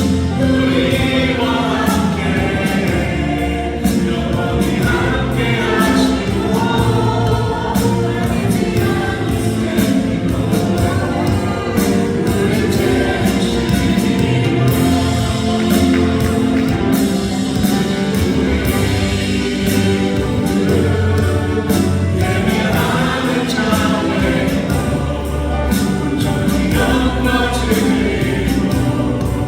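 Music with a choir singing, in a gospel style, over a steady beat.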